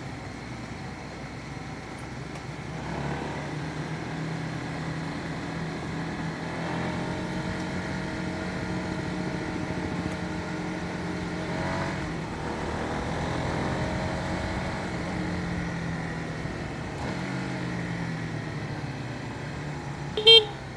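Honda CBR150R V3's single-cylinder engine running while riding, its note rising and falling with the throttle, over wind and road noise. A brief, sharp, loud sound comes near the end.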